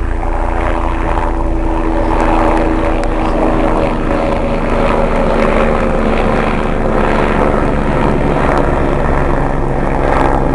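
Electric motor and propeller of a small foam FPV plane running steadily in flight: a continuous buzzing drone with several steady tones over a rush of air noise.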